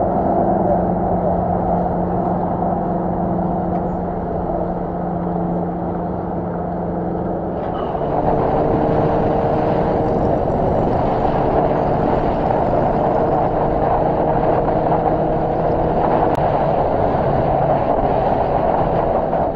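Motorcycle engine running steadily, then after an abrupt change about eight seconds in, riding at highway speed with wind noise over the camera and the engine holding a steady, higher note.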